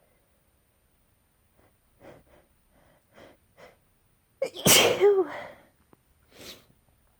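A person sneezing during a sneezing fit: a few short catching breaths build up, then one loud sneeze about four and a half seconds in, its voiced tail falling in pitch, followed by a shorter breathy exhale near the end.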